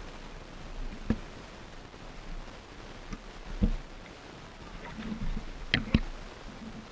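Water sloshing and swirling as heard by a submerged camera, with a few dull knocks and bumps, two of them close together near the end.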